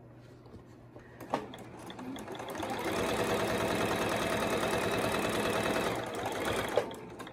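Domestic electric sewing machine stitching a seam. It starts up about two seconds in, runs fast and steady with a rapid needle rhythm, then slows and stops just before the end.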